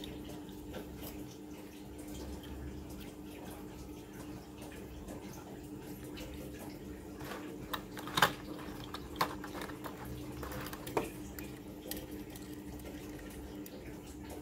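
Small die-cast toy cars and a clear plastic blister tray being handled. There are a few sharp clicks and crackles between about seven and eleven seconds in, the loudest about eight seconds in. A steady background hum runs underneath.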